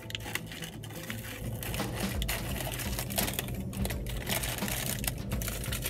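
Close-up chewing of a churro: irregular soft crunches and mouth clicks, over a low steady hum.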